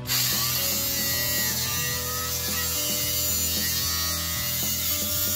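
Angle grinder cutting into the bottom edge of a steel door: a steady, high-pitched grinding hiss of the disc on metal.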